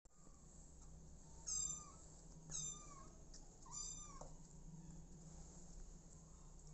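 Young kittens mewing: three short, high-pitched cries about a second apart, each dropping in pitch at its end.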